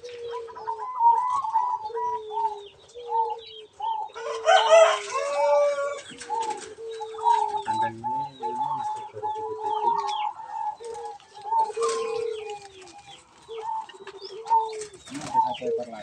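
Many zebra doves (perkutut) cooing in the aviary: a steady run of short, repeated coos overlapping from several birds. A chicken calls briefly about four seconds in.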